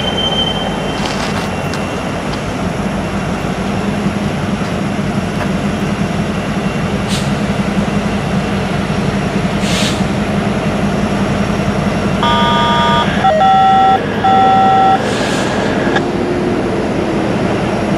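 Diesel locomotive horn sounding a chord in three blasts about twelve seconds in, as a train approaches, over a steady train rumble.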